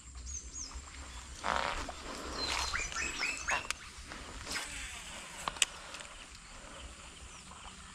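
Birds calling: a quick run of about five short, rising chirps a couple of seconds in, after a brief rush of noise. A single sharp click comes a few seconds later.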